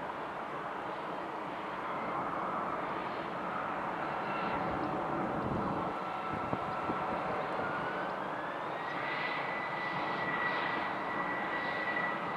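Jet airliner engines running as the aircraft taxis: a steady rush with a high whine that rises in pitch about eight seconds in and then holds.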